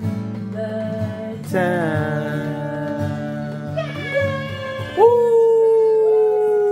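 Acoustic guitar chords strummed under a singing voice. About five seconds in the guitar drops away and a long, loud sung note is held, sliding slowly down in pitch.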